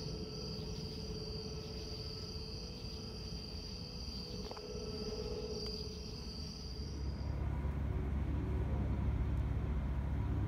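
Crickets trilling steadily, a high-pitched chorus that cuts off about seven seconds in. Then comes the low rumble of a jet airliner flying overhead.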